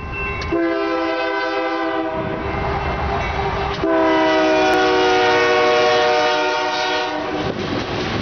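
Union Pacific diesel locomotive's air horn blowing two blasts, a short one about half a second in and a longer, louder one from about four seconds in that dips slightly in pitch as the locomotive passes. Underneath, the steady rumble of the locomotives and the coal train's cars rolling by.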